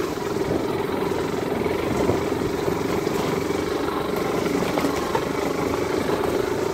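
Small motorcycle engine running steadily while being ridden, heard from the saddle: a steady drone whose pitch wavers slightly, over a haze of wind and trail noise.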